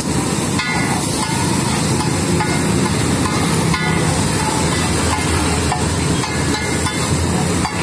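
Butter and cumin seeds sizzling with a steady hiss on a hot flat iron griddle (tawa), with a steady low hum underneath.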